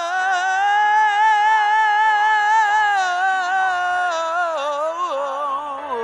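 Male singer holding one long note with vibrato on a wordless vowel for about four seconds, then sliding down through a short run of notes near the end.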